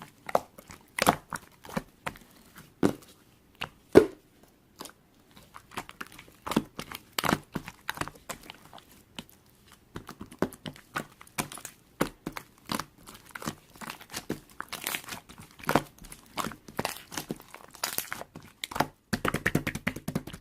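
Irregular rustling and crackling of clover and grass being handled, with scattered sharp snaps and soft taps.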